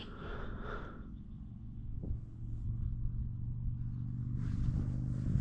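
A low, steady engine hum that slowly builds, like a vehicle going by, while a few waterfowl calls fade out in the first second.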